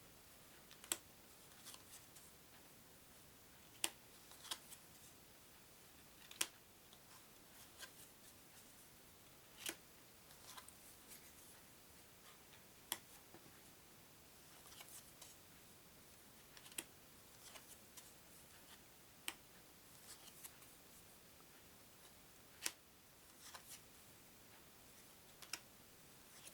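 Thick cardboard Pic Flip playing cards being handled and laid down one at a time. They make sharp single clicks every two to three seconds, with fainter rustling ticks between them.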